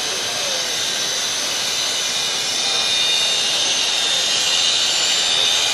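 FEIN RS 10-70E electric pipe belt sander running on a bent stainless steel pipe: a steady high-pitched whine with the hiss of the abrasive belt on the metal, a little louder in the second half.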